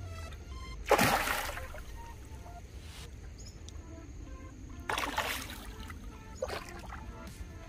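A hooked fish thrashing at the water's surface close to the bank: a loud splash about a second in, another about five seconds in, and a smaller splash soon after.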